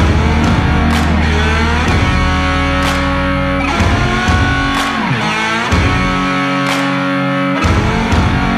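Background rock music: guitar over a steady drum beat, with notes sliding in pitch.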